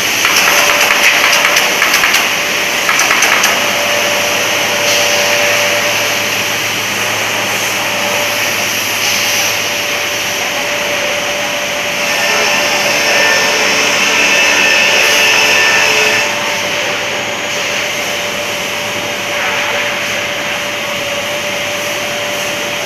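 PUR glue laminating and pressing line running: a steady, loud whirring machine noise with a constant hum-like tone, with rapid light rattling in the first few seconds.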